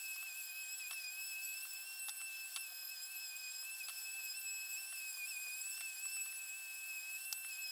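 Random orbital sander running while sanding a wooden table leg: a steady high-pitched whine, with a few faint ticks.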